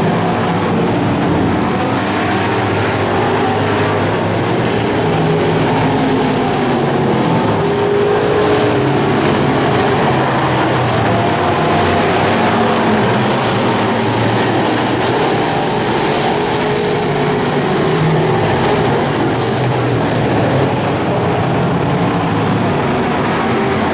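Dirt-track stock car engines running hard at racing speed, loud and steady, their pitch rising and falling as the cars go around the oval.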